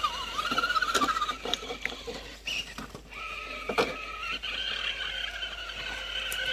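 Whine of RC rock crawlers' electric motors and gearboxes, the pitch wavering up and down with the throttle, with scattered clicks and knocks of tyres and chassis on rock.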